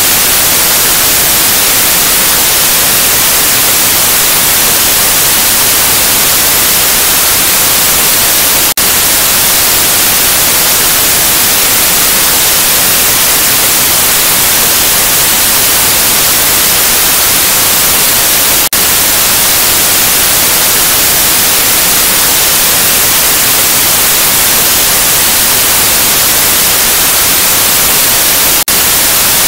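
Loud, steady white-noise hiss of TV static, with a very brief dip about every ten seconds.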